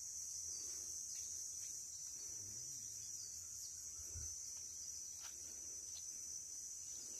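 Steady high-pitched chorus of forest insects, with a couple of faint short chirps about five and six seconds in.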